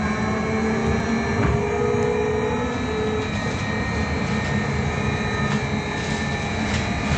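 Škoda 30Tr SOR trolleybus running under electric traction: the motor and its drive whine as several steady tones that shift slowly in pitch, over running rumble.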